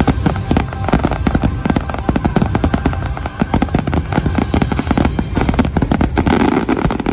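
Finale barrage of a fireworks display: a rapid, dense run of bangs and crackles, several a second, over the show's music. The barrage stops abruptly just at the end.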